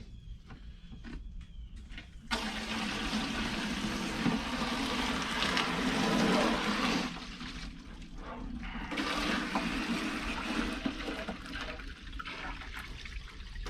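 Water from a barn hydrant hose running and splashing into a container. The flow gets much louder about two seconds in, eases off for a couple of seconds near the middle, then picks up again.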